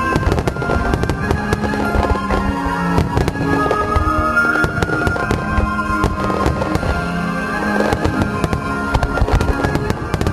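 Starmine fireworks barrage, with shells bursting in rapid, irregular succession throughout, over music playing at the same time.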